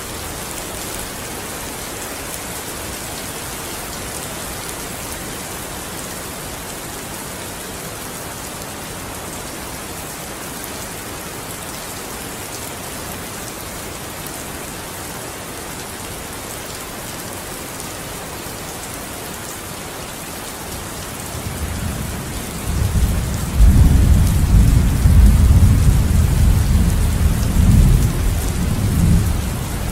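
Steady rainfall hissing, with a long rolling rumble of thunder that builds about two-thirds of the way through, becomes the loudest sound for several seconds, then fades near the end.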